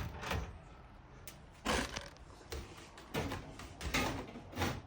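Clips of a stand fan's front guard being prised open and the guard worked off: a handful of separate clicks and knocks, the clips stiff.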